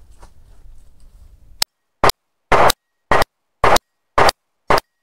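Glock 30 Gen4 .45 ACP pistol fired rapidly: seven shots about half a second apart, starting a little over a second and a half in, with dead silence between them.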